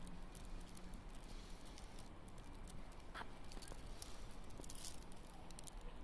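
Faint, even background noise with scattered light clicks and rustles, as from a handheld phone being moved about.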